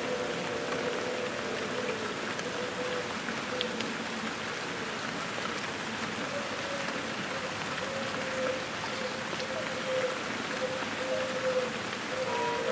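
Steady rain falling in a field recording, an even hiss of drops. A faint wavering held tone sits under it and grows stronger near the end.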